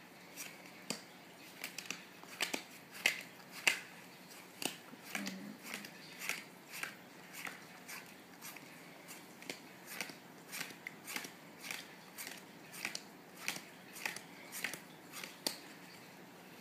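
Playing cards dealt one at a time from a deck onto piles on a cloth card mat, each card landing with a short soft snap, roughly two a second and uneven.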